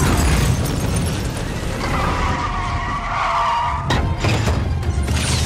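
Film sound of a car engine running hard under a low rumble, with a tyre squeal from about two seconds in to nearly four, cut off by a sudden sharp knock.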